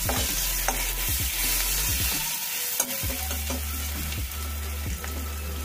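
Slit green chillies, crushed garlic and nigella seeds sizzling in hot oil in a metal kadai, with a flat spatula stirring and scraping the pan now and then.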